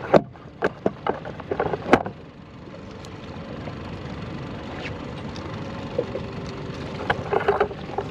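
Sharp knocks and clicks in quick succession for about the first two seconds, then steady wind and water noise around a small boat at sea.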